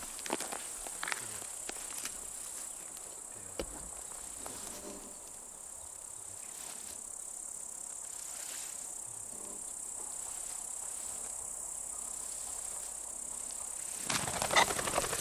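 Meadow insects chirring in a steady, high-pitched buzz, with a few light rustles early on. A short cluster of louder, sharp noises comes near the end.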